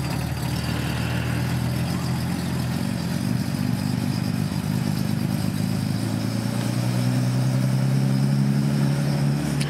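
Nissan Skyline C110 engine running steadily, then revving up slightly and getting louder over the last three seconds.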